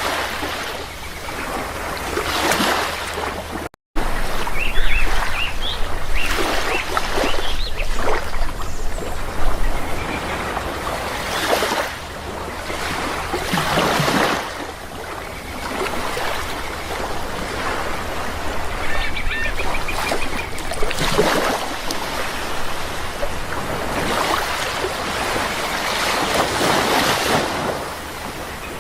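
Sea waves washing in and drawing back every few seconds, with birds calling in two short bouts over the surf. The sound cuts out for a split second about four seconds in.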